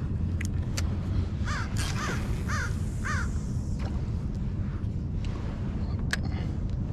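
A bird calling four times in quick succession, short harsh calls about half a second apart, a second or two in, over a steady low rumble. A few sharp clicks, one near the end.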